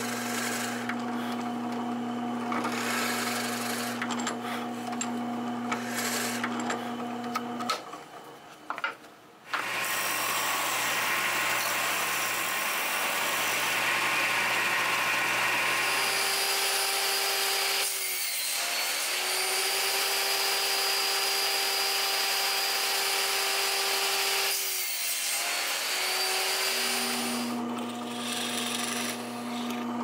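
Benchtop drill press humming as a countersink bit cuts into birch plywood; it stops about eight seconds in. Next, a disc sander runs with a louder grinding noise on wood that dips briefly twice. Near the end, the drill press hum returns as a twist bit drills into wood.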